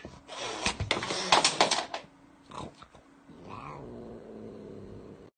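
A domestic cat growling and yowling in complaint, with scuffling noises over the first two seconds.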